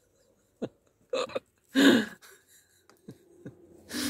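A man laughing to himself in short breathy bursts, the loudest about two seconds in, then a noisy breath near the end.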